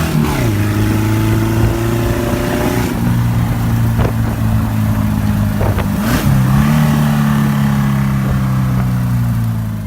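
Vehicle engine running under load, its pitch dropping shortly after the start and rising again about six seconds in as it revs, over a steady noise of travel.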